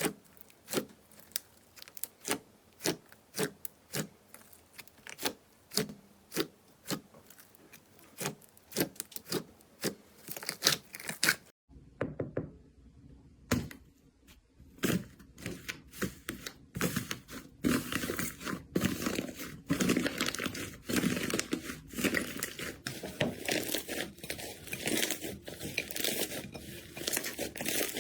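Slime being worked by hand, about two sharp sticky pops or clicks a second. After a short quiet break about twelve seconds in, this gives way to a dense crunchy crackling as crunchy slime is squeezed.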